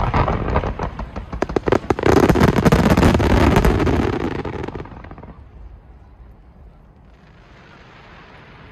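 Fireworks finale barrage: many shells bursting overhead in quick succession, with rapid bangs and crackling that build to a dense, loud volley about two seconds in, then die away after about five seconds.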